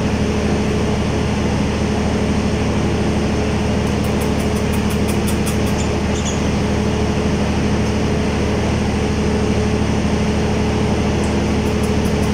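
Steady machine hum with a constant low drone, like a motor or fan running close by. A quick run of faint high ticks comes about four seconds in and again near the end.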